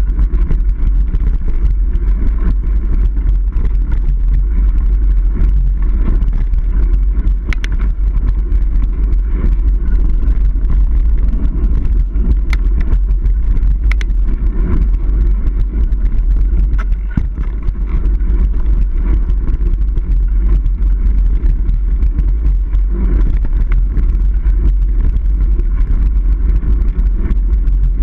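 A Niner Jet 9 RDO mountain bike riding over a dirt trail, heard as a loud, steady low rumble of trail and wind noise on an action camera's microphone. A few sharp clicks come through around the middle.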